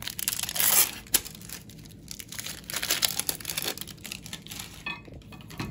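Plastic film crinkling and rustling as cheese slices are peeled from their wrapping and handled, in short irregular crackles, loudest about half a second in.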